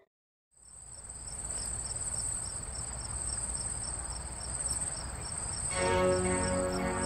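Crickets chirping in a steady high trill with a regular pulse, starting after a brief moment of silence. Music comes in near the end.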